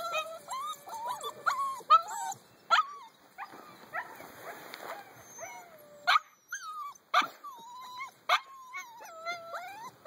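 Husky puppies whining and whimpering in drawn-out, wavering cries, broken by several short, sharp yips.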